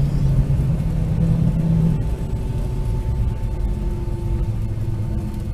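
Cabin noise of a Boeing 757 rolling on the ground after landing: a steady rumble of engines and wheels. About two seconds in, a low hum stops and the noise eases slightly, and thinner, higher steady tones take over.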